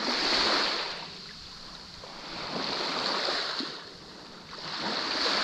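Small waves washing up on a sandy shore: a hissing wash that swells and fades three times, roughly every two and a half seconds.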